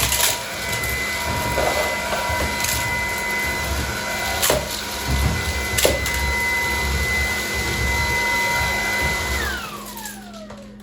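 Cordless stick vacuum running at full power with a steady high motor whine, a few sharp clicks of pebbles rattling up the nozzle. About nine seconds in it is switched off and the whine falls in pitch as the motor spins down.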